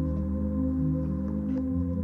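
Background music: slow ambient synth chords over a steady low drone.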